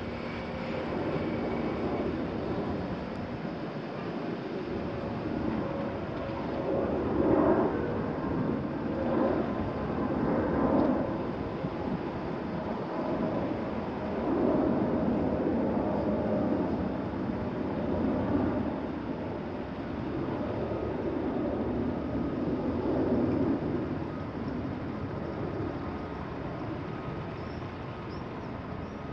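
Diesel engines of a Volvo excavator and a wheel loader working on an earthwork site, heard from a distance, their sound swelling and easing every few seconds as the machines work under load.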